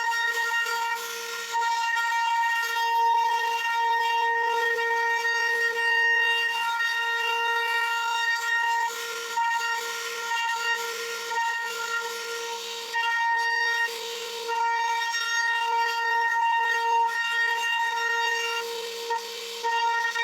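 CNC router spindle running at high speed with a steady high-pitched whine while the bit cuts into wood, with a rasping cutting noise. The sound dips briefly every few seconds as the cutter moves along the carving path.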